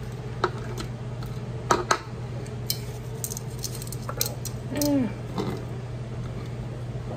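Glass canning jars and vegetables being handled as onion is packed down into quart jars: scattered light clicks and knocks, the loudest a little under two seconds in, over a steady low background hum. A brief falling-pitched squeak about five seconds in.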